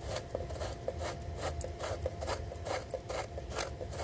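Drain plug being unscrewed by hand from the bottom of a Pentair fiberglass pool filter tank with worn threads. The threads rasp in a quick series of short scrapes, about four a second.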